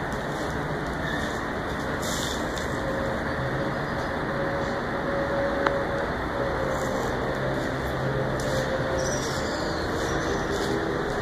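Steady hum of distant city traffic, with a faint engine drone wavering through it and a single sharp click about halfway through.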